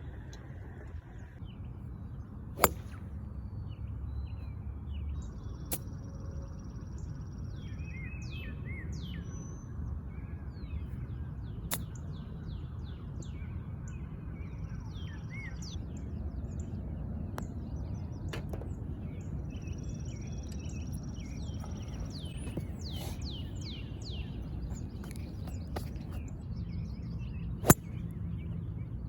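Sharp cracks of golf clubs striking balls: a loud one a few seconds in and another near the end, with fainter cracks between. Birds sing throughout over a low, steady outdoor rumble.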